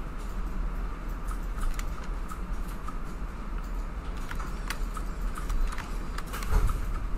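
Scattered small clicks and taps of a computer mouse and keyboard, irregular, over a steady low hum.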